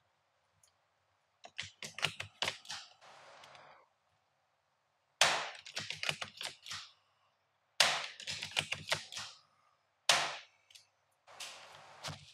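Steyr Scout airsoft bolt-action rifle with a long over-barrel suppressor: a run of mechanical clicks as the bolt is worked, then three sharp shots about two and a half seconds apart. Each shot is followed by a quick clatter of clicks as the bolt is cycled again.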